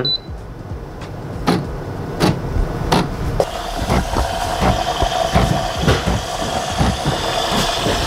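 Mattinata espresso machine beeps once as its single-shot button is pressed, then its pump starts up with a few spaced clicks and settles, about three and a half seconds in, into a steady buzzing hum as it pushes water through the portafilter to brew an espresso shot.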